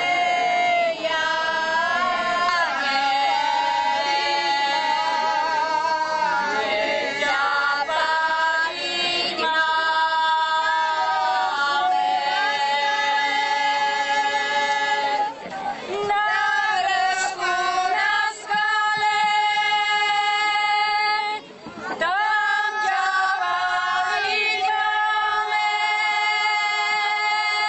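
A group of women's voices singing together without instruments, in long held notes, with a few short breaks between phrases.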